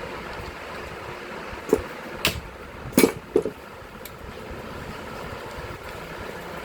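Four short, sharp knocks, close together, over a steady background hum: tools or parts being handled during the repair of a power hammer.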